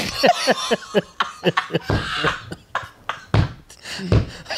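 A man laughing hard in repeated short bursts, with breathy gasps between them.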